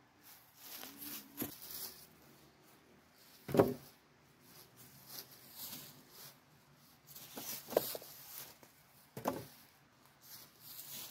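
Footsteps rustling and crunching through dry fallen leaves, with sharp wooden knocks as poles are dropped onto logs: one loud knock a few seconds in and two more near the end.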